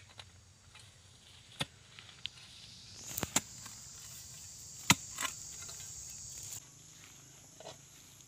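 Machete blade chopping into soil and roots to dig out a wild tuber: a series of sharp, irregular strikes, the loudest almost five seconds in.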